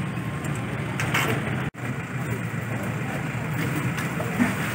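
Steady low rumble of road traffic and running vehicle engines on a street, with a few faint higher clatters; the sound cuts out for an instant about a third of the way in.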